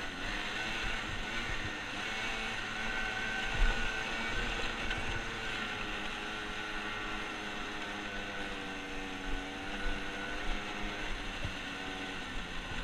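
Arctic Cat ATV engine running while being ridden at a steady speed. The engine pitch sags a little past the middle and climbs again, and there is a brief bump about three and a half seconds in.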